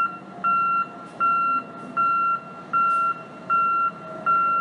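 Box truck's back-up alarm beeping in reverse: one high tone repeated evenly, about four beeps every three seconds, over the low running of the truck's engine.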